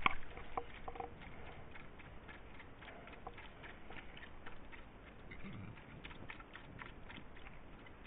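A dog lapping water from a shallow ditch: faint, irregular wet clicks, a few a second.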